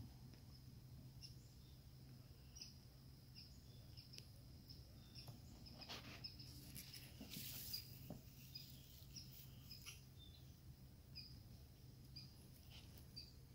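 Near silence: faint outdoor ambience with a steady low hum and scattered faint, high chirps, and a brief rustle a little past the middle.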